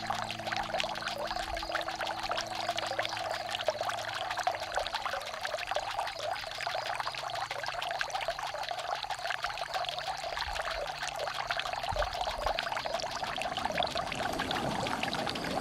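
Running water trickling and splashing steadily, with low held drone tones underneath that fade out about halfway through.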